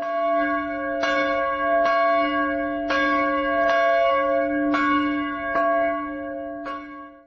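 A bell struck over and over, about once a second, each strike ringing on into the next. The ringing stops abruptly at the end.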